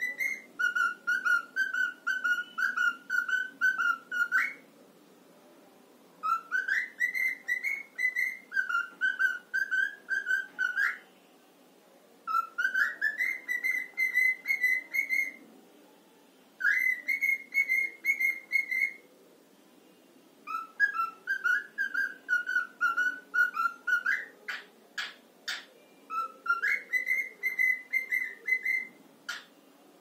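A cockatiel whistling a repeated song phrase in six bursts of a few seconds, split by short pauses. Each burst is a fast run of pulsed whistled notes that steps between a higher and a lower pitch. A few sharp clicks come shortly before the last burst.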